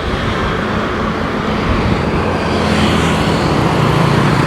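Wind rushing over the microphone with a motor engine running underneath, a low hum that grows a little stronger past the middle.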